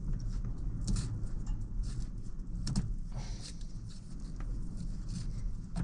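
A few light clicks and rustles, with one about a second in and another near three seconds, over a steady low hum.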